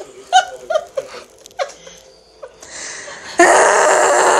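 A woman giggling in short bursts close to the microphone, then, about three seconds in, a loud rough rushing noise that sets in suddenly and holds to the end.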